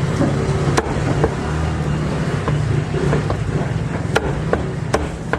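Cleaver chopping roast meat: single sharp chops spaced out at first, then a quicker run of about four near the end, over a steady low hum of background noise.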